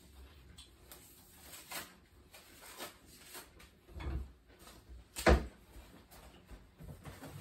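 Kitchen handling noises: a few light knocks, a low thump about four seconds in, then a sharp bang just after five seconds, like something being set down or a cupboard or drawer shut at the counter.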